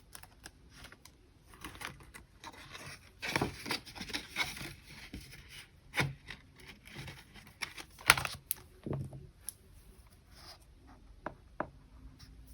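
Paper bills being handled and tucked into a cash envelope: intermittent rustling and crinkling with scattered light clicks, the sharpest about eight seconds in.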